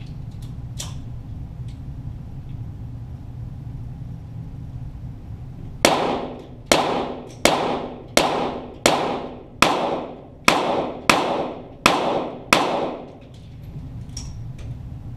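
.22 Walther GSP target pistol firing a string of about ten shots, evenly spaced a little under a second apart, starting about six seconds in; each crack is followed by a short echo.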